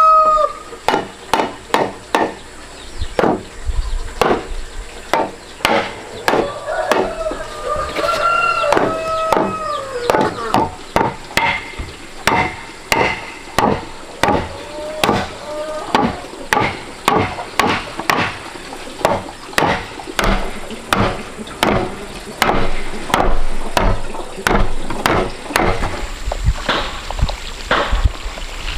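A wooden mallet knocking wooden panels and frame pieces together as a door and wall are assembled, in a steady run of sharp knocks about one or two a second. A rooster crows at the start and again about eight seconds in.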